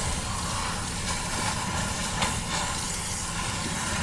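Garden hose running water into an old clay drain pipe: a steady rushing hiss with a low rumble under it, and one short knock or scrape about two seconds in as the hose is pushed into the pipe.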